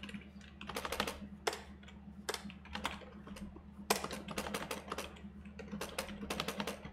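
Typing on a computer keyboard: quick runs of keystroke clicks with short pauses between them, over a steady low hum.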